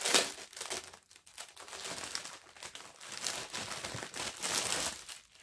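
Plastic packaging crinkling and rustling as the small plastic bags of diamond-painting drills are picked up and handled, loudest in a burst at the start, then in irregular handfuls.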